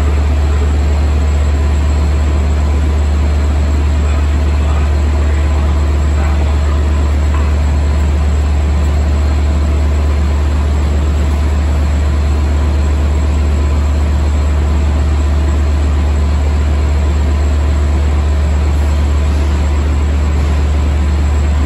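A standing Long Island Rail Road diesel train idling at the platform. It makes a loud, steady low drone with a few faint, even hums above it, unchanging throughout.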